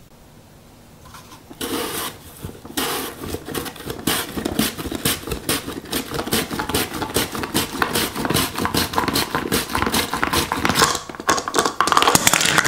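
A tomato being sliced on a Nicer Dicer Fusion's slicing blade, the plastic food holder pushed rapidly back and forth over the blade. It makes a fast run of scraping strokes, several a second, starting about a second and a half in.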